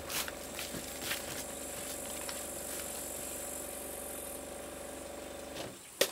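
Refrigerator compressor running with a steady hum, then cutting off about five and a half seconds in as it is switched off, followed by a sharp click.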